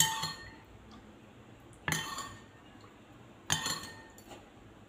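A metal tablespoon clinking against a ceramic bowl and mug three times, about a second and a half apart, each a sharp clink with a short ring, as water is measured by the spoonful into a soy and sesame sauce.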